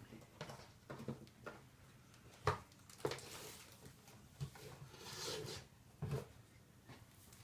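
Faint handling sounds: a few separate clicks and knocks and a brief rustle as the drone's charger, battery and cables are handled and plugged in.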